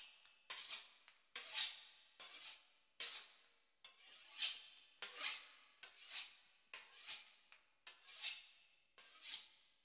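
A knife sawing back and forth through the crisp pastry crust of a Beef Wellington, each stroke a crackly rasp. The strokes come in a steady rhythm, a little more than one a second.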